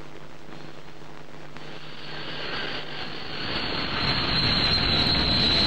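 Propeller airliner engines running with a steady high whine, growing louder from a little past halfway.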